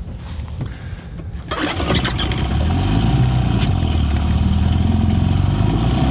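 Yamaha 25 hp two-stroke outboard motor starting up after a fuel tank switch: it catches about a second and a half in and then runs steadily. The first tank had run empty, so this is the restart on fuel from the freshly connected tank.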